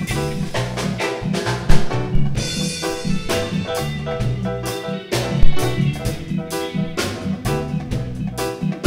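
Live reggae band playing an instrumental passage: a Stratocaster-style electric guitar over bass guitar and a drum kit keeping a steady beat.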